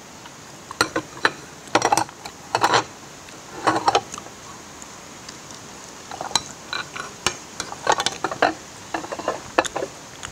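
Plastic packaging rustling and dishes clinking as food is handled at a table, in short scattered crackles and clicks.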